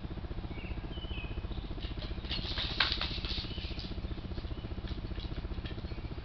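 Motorcycle engine idling with a steady low pulse. About two seconds in comes a burst of scrabbling and rattling that is loudest near the three-second mark.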